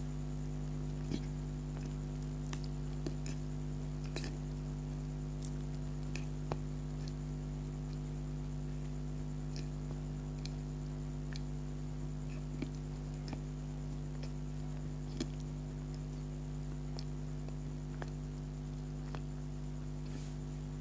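Person chewing soft donut close to the microphone: scattered small wet clicks and smacks at irregular intervals. Underneath runs a steady low electrical hum.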